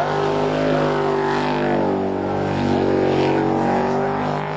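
Racing jet boat's engine running hard at high revs, its pitch nearly steady, over the hiss of the water spray it throws up.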